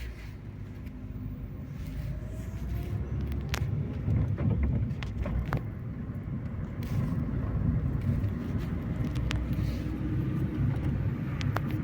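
Car engine running with a steady low rumble, plus a few short clicks.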